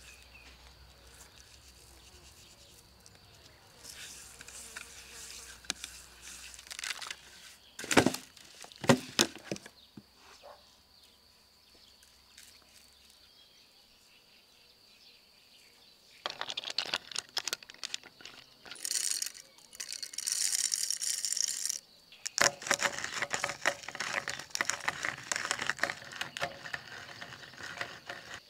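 Raw beef ribs being seasoned by hand: a few sharp knocks about eight seconds in, then long spells of rattling and crackling from about halfway on as salt and spices are shaken from jars and sprinkled over the meat.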